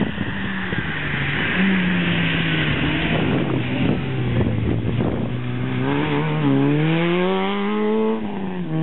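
Rally car engine at high revs as the car drives past on the stage. The note sags, then climbs steadily under acceleration, drops sharply with a gear change about eight seconds in, and starts climbing again.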